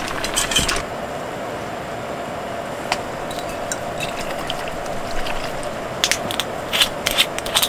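Cookware and a glass soju bottle being handled over a steady hum: chopsticks and dishes clink at the start, a single sharp click comes about three seconds in, and a cluster of ratchety clicks near the end fits the bottle's screw cap being twisted open.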